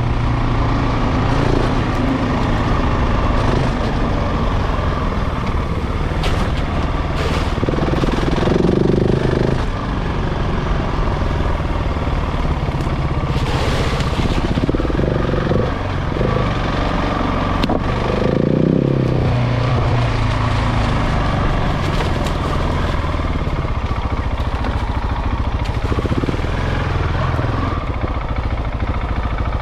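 KTM 690 Enduro's single-cylinder engine running while the bike is ridden off-road, its pitch rising in a few short spells of throttle, with brief sharp clatters mixed in. The engine is being run in.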